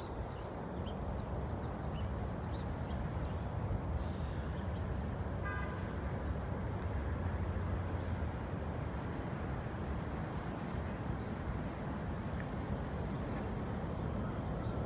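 Steady low rumble of distant city traffic, with a short car-horn toot about five and a half seconds in.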